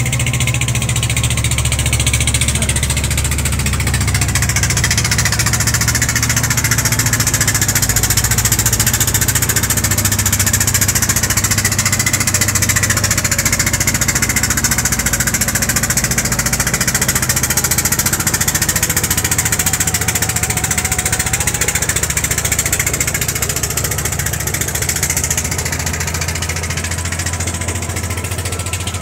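An engine running steadily: a low drone that shifts in pitch a few times, with a hiss over it.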